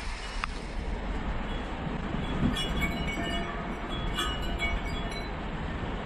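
Wind chimes tinkling in scattered clusters, busiest about two and a half and four seconds in, over a steady hiss of pouring rain and a low rumble of thunder that swells briefly about two and a half seconds in.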